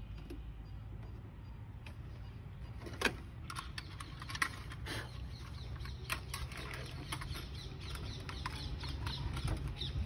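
Backhoe loader air filter element being pushed into its housing and the cover fitted over it: scattered plastic knocks, clicks and scrapes, the sharpest about three and four and a half seconds in, over a steady low rumble.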